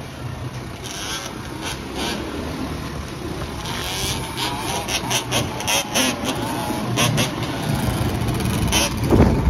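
Engines of a group of quads and dirt bikes riding along a street, among them a two-stroke Yamaha Blaster quad bored out to 260cc, running and revving unevenly, with a louder burst near the end.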